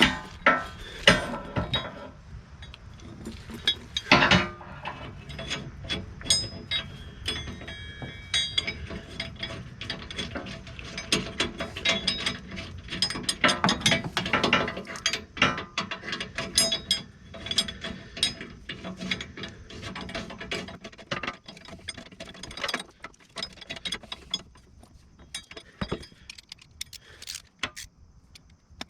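Hand socket ratchet clicking in quick runs of strokes with short pauses as bolts are run in and tightened to secure a skid plate mounting bracket, with a few louder metal knocks near the start.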